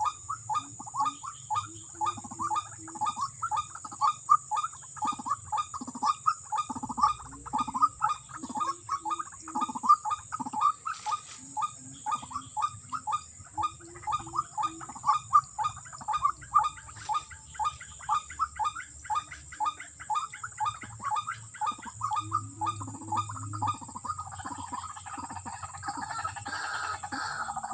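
White-breasted waterhen (ruak-ruak) calling: a long, monotonous run of short, repeated notes, about three a second, that grows denser and rougher near the end.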